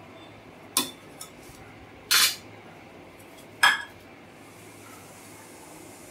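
Steel kitchen utensils and bowls clinking three times, short knocks about a second and a half apart, the middle one the longest, with a faint tick after the first.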